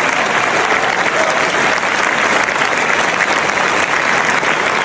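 Crowd applauding: a dense, steady wash of clapping.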